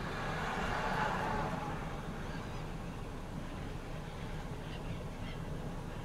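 A flock of black-headed gulls with a few short, faint calls near the end, over a steady low outdoor rumble.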